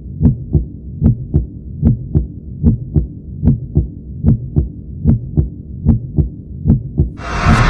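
A heartbeat-like double thump, lub-dub, repeating evenly about 75 times a minute. About seven seconds in, a loud rushing noise swells in over it.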